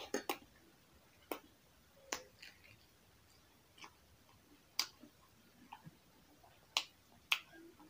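Eating sounds: a metal spoon tapping and scraping in an enamel bowl, with chewing and lip smacks, heard as sharp clicks about every second.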